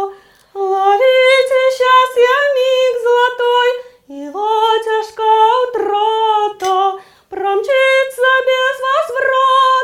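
A high female voice singing a melody unaccompanied, in several phrases separated by short breaths.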